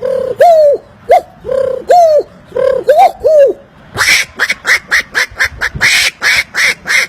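A man imitating bird calls with his mouth: first a run of short, low calls that rise and fall in pitch, then about four seconds in a faster run of sharp, higher, harsher calls, about five a second.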